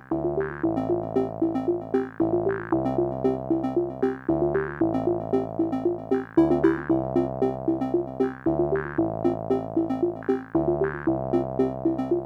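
Electronic intro music: a fast repeating synthesizer arpeggio over a bass line that changes every second or two, with a short bright hit about every two seconds.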